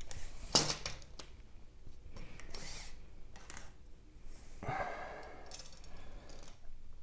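Quiet, short scrapes and rustles from a tape measure held to the wall and a pencil marking it, with short breaths.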